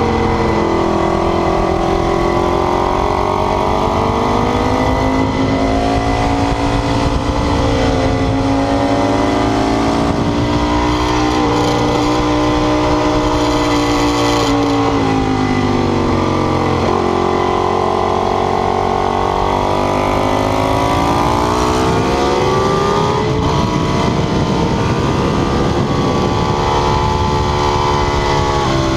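Ducati 848 sport bike's L-twin engine running hard on a race track, its pitch climbing under acceleration and falling back several times as the rider shifts and brakes, with a sharp drop in revs about halfway through.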